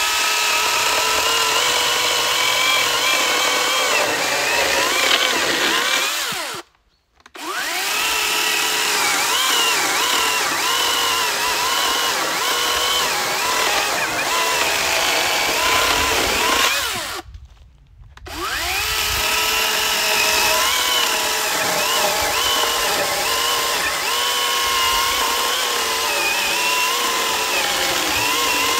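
Cordless electric chainsaw cutting through a log, its motor whining with the pitch wavering as the chain works in the wood. Twice the trigger is released and the saw falls silent for about a second, then spins back up.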